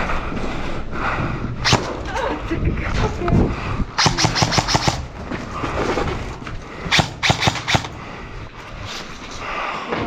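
Airsoft guns firing: a single shot about two seconds in, then two rapid bursts of about half a dozen shots each, around four and seven seconds in.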